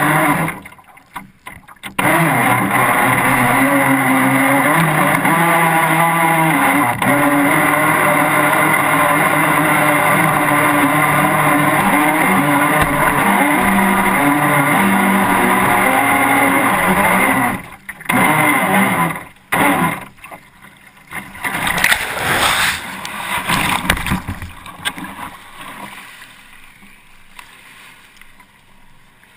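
RC speed boat's motor running at speed, its pitch shifting with the throttle. It cuts out briefly about a second in, then stops and starts several times late on before falling away to a low level near the end.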